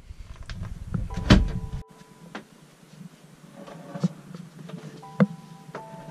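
Heavy wooden cabin floorboard, white oak planking over plywood, being handled and set into its frame: a solid knock about a second in, then a lighter knock near the end.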